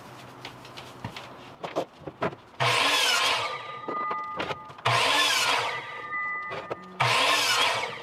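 Electric miter saw making three quick crosscuts through pallet-wood boards, each cut about a second long, with a whine lingering as the blade runs down after each one. Light wooden knocks come between cuts as the boards are moved.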